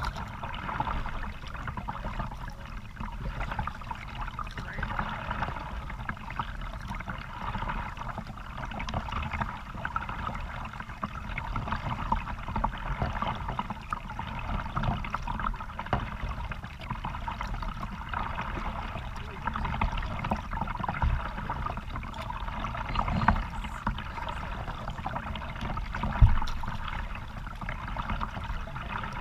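Creek water splashing and trickling around a moving kayak, over a steady low rumble. A single sharp knock sounds near the end.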